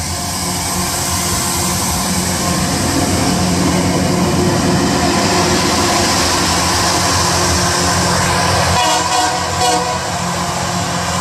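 Loram rail maintenance train passing at close range: a steady, loud rumble of its diesel power units and wheels on the rail. A short pitched sound rises over it about nine seconds in.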